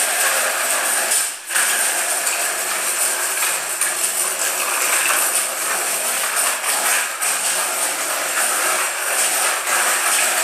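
Small children's bicycle with training wheels rolling and rattling steadily over a hard stone floor, with a brief drop about one and a half seconds in.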